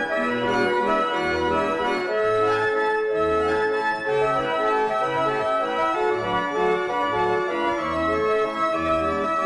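Mechanical pipe organ playing a tune, with sustained melody notes over regular bass notes.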